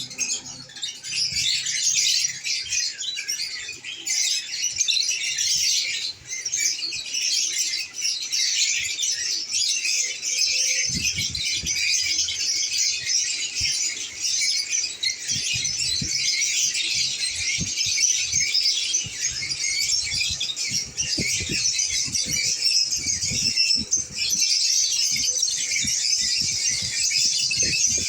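Lovebirds chattering and chirping in a dense, continuous high-pitched stream, with scattered low knocks from about a third of the way in.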